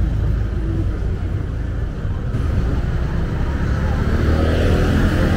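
Street traffic: the steady rumble of car and motorbike engines running close by.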